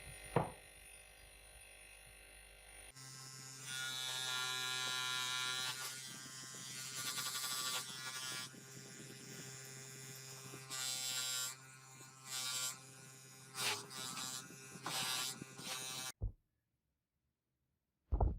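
A small electric motor buzzing steadily, its sound growing louder and harsher in stretches of a second or two, then cutting off suddenly.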